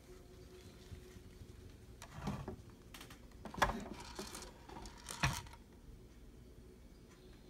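Light handling noise: three soft knocks with some rustling between them, over a faint steady hum.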